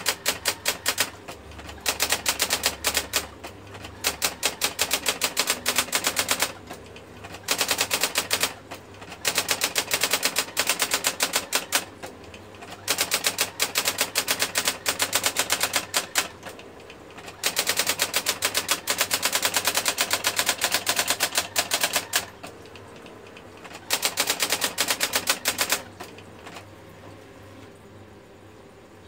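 Brother GX 6750 electronic daisywheel typewriter printing: fast, even runs of sharp type strikes lasting a few seconds each, with short pauses between runs, stopping near the end.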